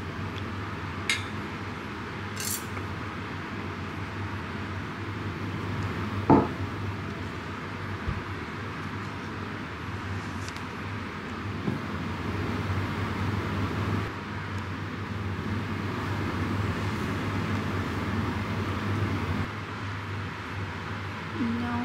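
Steady room noise with a few scattered clinks and knocks of small objects being handled. The loudest knock comes about six seconds in.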